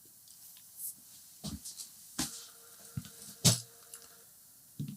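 Dymo label printer printing a heat-shrink tube label: its motor hums steadily for about two seconds in the middle, among several sharp clicks from handling the printer and parts.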